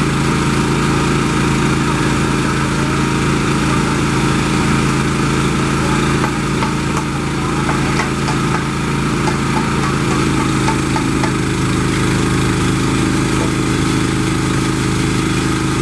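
Engine of a hydraulic power pack running at a steady speed, driving a hydraulic roller screed tube through its hoses.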